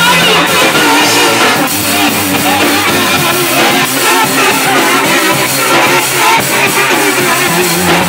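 Loud live band music with a drum kit and a woman singing into a microphone.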